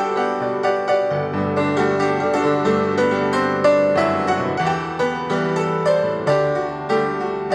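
Instrumental background music: a steady flow of struck notes that ring on and overlap.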